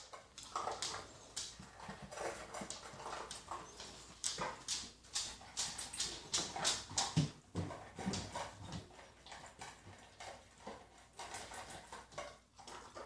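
A dog close by, with irregular clicking and tapping sounds and a few short, faint whimpers.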